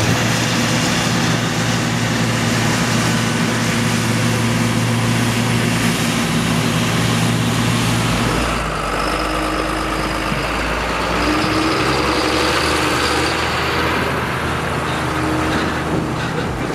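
Diesel engines of harvest machinery running steadily under load. The engine note shifts to a different pitch about halfway through.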